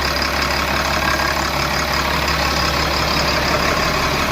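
Tata BS4 bus's diesel engine idling steadily.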